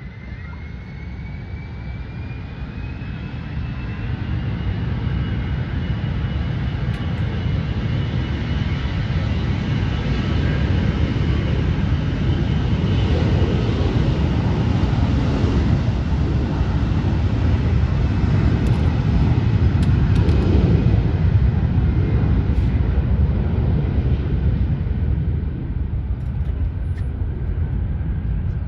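Jet airliner flying past: its engine rumble builds steadily, peaks about two-thirds of the way through, then eases off. A high engine whine runs over it, rising in pitch during the first few seconds.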